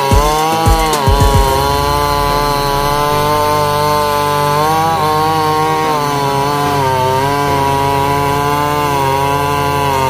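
Two-stroke chainsaw cutting through a neem log, its engine pitch dipping and rising as the chain bites and eases under load.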